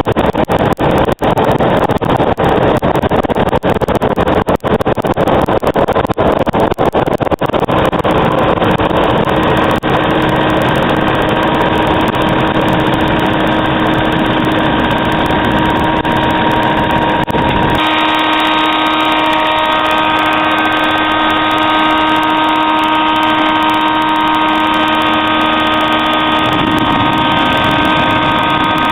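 Waste oil furnace burning used motor oil: a loud, steady rushing noise of the burner. About eighteen seconds in the low rumble drops out, leaving a steady hum with several held tones.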